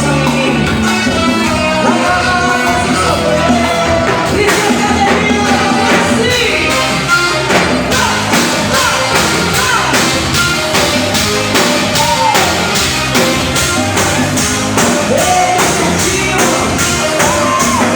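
Upbeat Latin dance music with a woman singing over a fast, steady beat; the percussion comes in more strongly about four seconds in.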